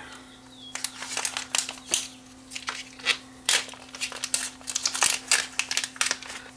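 A small plastic packaging bag crinkling and crackling in the hands as it is worked open, in irregular sharp crackles. A faint steady hum sits underneath.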